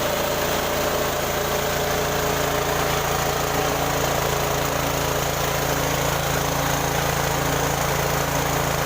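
Mini rice milling machine running steadily, a constant motor hum with an even hiss over it.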